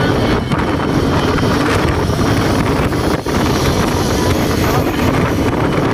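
Steady road and wind noise of a car moving at speed, heard from inside, with wind rumbling on the phone's microphone.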